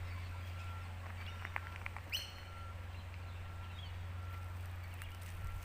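Wild birds calling and chirping, with a few sharp chirps about halfway through, over a steady low hum. A faint short tone repeats regularly about every two-thirds of a second.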